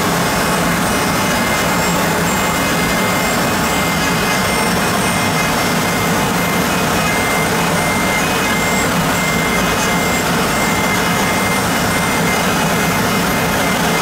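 A vertical machining center's spindle runs at high speed while a 4 mm end mill semi-finishes graphite. It makes a steady, even cutting noise with a thin high tone held throughout.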